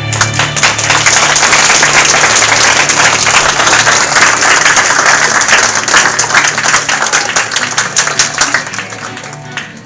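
Audience applauding, a dense crowd of hand claps that starts suddenly and dies down near the end.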